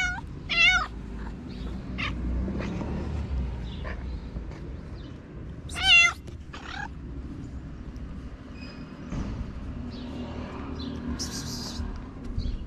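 Orange tabby cat meowing: two short meows at the start, then a louder, wavering meow about six seconds in, followed by a weaker one.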